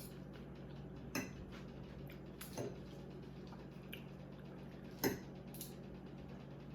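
Eating sounds: about six scattered light clicks and taps of utensils and food containers, over a faint steady hum.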